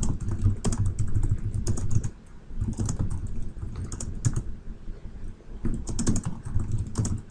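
Typing on a computer keyboard: quick runs of keystrokes in bursts, with short pauses about two seconds in and again near five seconds.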